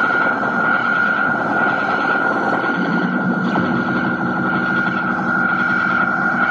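Handmade oscillator noise synth built into a doll's head, giving a steady, loud electronic drone: a high whine over a harsh, distorted buzz. A lower hum joins in about three seconds in, as its button and knob are worked.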